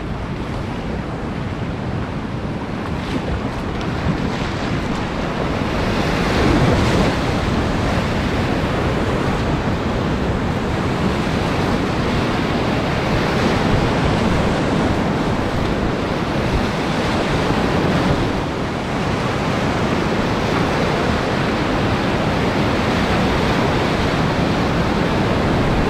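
River whitewater rushing and churning close around a kayak running a rapid, a steady wash of noise that grows louder about six seconds in as the boat drops into the whitewater. Wind noise buffets the microphone.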